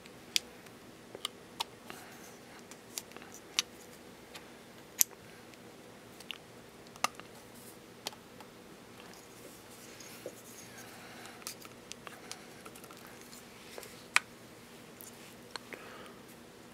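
Irregular sharp clicks and taps of small metal clamps being slid onto and fitted around a carbon-fibre tube by hand, over a faint steady hum.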